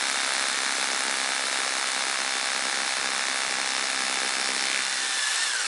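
Einhell TH-RH 800E rotary hammer drilling into stone, a steady loud hammering drone as the bit bores in. Right at the end a whine starts to drop in pitch.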